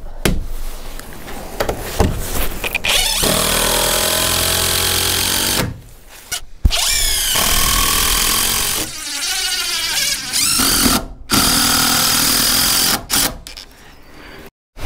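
Cordless drill driving screws into timber roof framing, in several long runs with short pauses between, the motor's pitch sliding down and up within each run.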